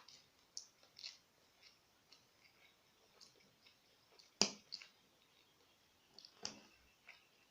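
Close-up eating sounds of a person eating instant noodles and chicken: quiet chewing with wet mouth clicks and smacks. A sharper, louder knock comes about four and a half seconds in, and another about two seconds later.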